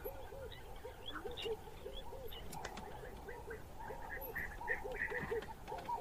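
Forest birds calling: one bird repeats a short, low note two or three times a second, while other birds chirp higher up, over a steady faint drone.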